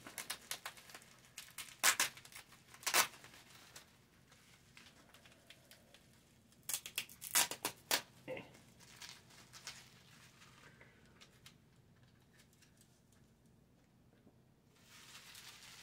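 Crinkling and rustling of packaging being handled, with sharp crackling clicks, in two bursts near the start and around the middle, and a softer rustle near the end.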